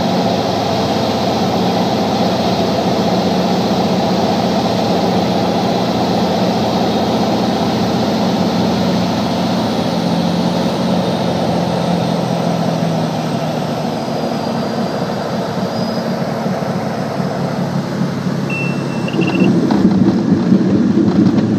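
Cirrus SR22's six-cylinder piston engine and propeller droning steadily at low power in the cabin on final approach, easing off about two-thirds of the way through as power comes back for landing. Near the end a louder, rougher rumble sets in as the wheels roll along the runway.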